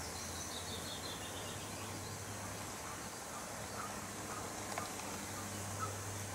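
Steady outdoor background hiss with a small songbird singing a short falling run of high notes in the first second and a half, then a few faint chirps.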